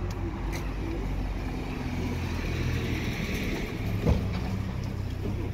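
City street traffic: vehicle engines running in a steady low rumble, with a short knock about four seconds in.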